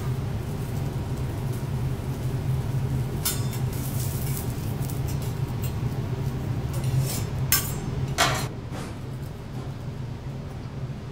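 Metal spatula and fork clinking and scraping on a steel teppanyaki griddle as onion rings are stacked: a few scattered sharp clinks, the loudest about seven to eight seconds in, over a steady low hum.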